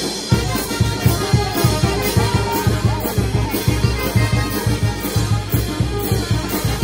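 Brass band playing a lively dance tune, with saxophones, clarinet and trumpets over a steady bass-drum beat.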